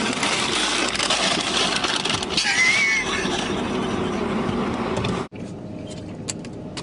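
A man's wheezing laughter, breathy and noisy, with a short squeaky rise near the middle. It cuts off abruptly about five seconds in, leaving quieter background with a few clicks.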